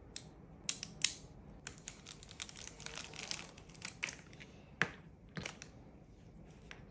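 Plastic Beyblade X top parts clicking as they are twisted and snapped together, then a thin plastic parts bag crinkling as it is torn open and handled, with a couple of sharp plastic clicks near the end.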